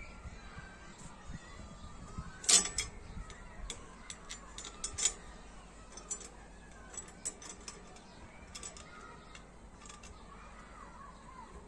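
Small metal clinks and clicks of hardware and steel tubing being handled and fitted together by hand while bolting the handle onto a steel-mesh drum compost spreader. They come irregularly, the loudest clink about two and a half seconds in and a quick cluster a couple of seconds later.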